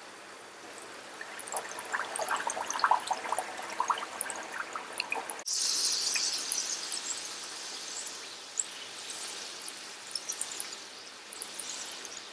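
Urad dal–stuffed puri (radhaballavi) frying in hot oil: bubbling with crackly pops. About five and a half seconds in, a sudden louder hiss starts, then settles into a steady sizzle.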